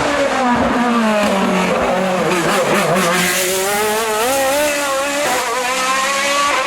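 Race car engine on a hillclimb: the revs fall for about two seconds as it slows, then climb hard, drop sharply on an upshift about five seconds in, and climb again.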